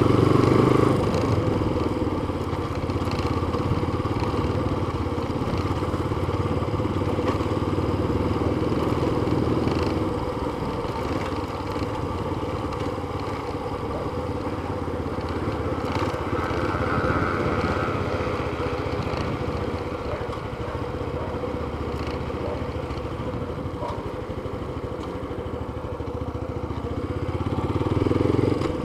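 Yamaha FZ25 motorcycle's single-cylinder engine running steadily as the bike rides along a street, heard from the rider's seat; the engine note swells briefly near the end.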